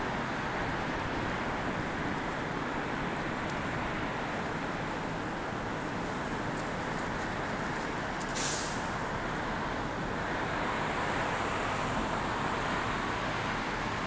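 Steady traffic noise from a busy multi-lane road, with a brief sharp hiss about eight seconds in.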